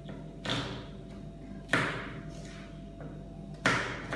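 Knife chopping down hard through food on a cutting board: three sharp strikes, each ringing on in the tiled kitchen, with lighter knocks between them.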